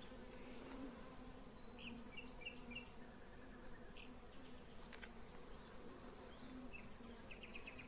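Honeybees buzzing at an open hive, a faint steady low hum from the colony, with a few faint high chirps.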